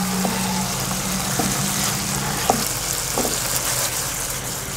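Chicken pieces in ketchup sauce sizzling gently in a non-stick frying pan on a low flame, with a wooden spatula knocking against the pan about four times. A steady low hum runs underneath.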